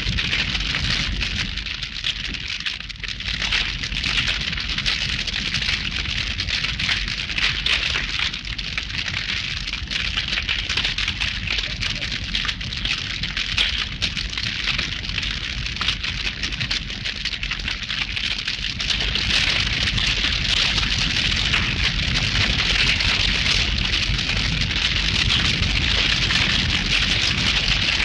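Cartoon fire sound effect: a continuous crackling hiss over a low roar, getting louder about two-thirds of the way through.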